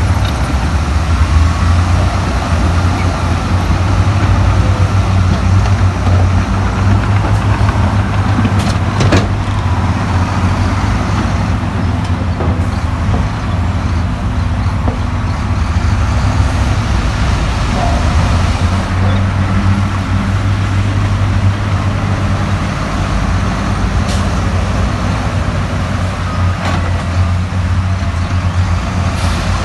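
Heavy diesel engine of earthmoving machinery running steadily under load, a deep even drone, with a few sharp clanks at intervals.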